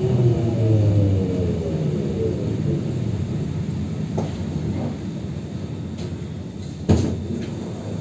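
Translohr rubber-tyred tram's electric traction drive whining downward in pitch as the tram brakes to a stop, heard from inside the car. A steady low rumble follows, with a few faint clicks and one sharp clunk about seven seconds in.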